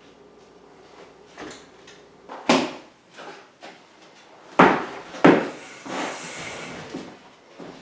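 Drywall tools knocking and scraping during skim coating with joint compound: a few sharp knocks, then a scraping stretch of about two seconds near the end.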